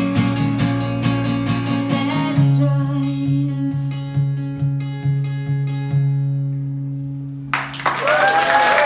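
Acoustic guitar playing the closing chords of a song, the strums slowing to a last chord that rings out and fades. About seven and a half seconds in, the audience breaks into applause and cheers.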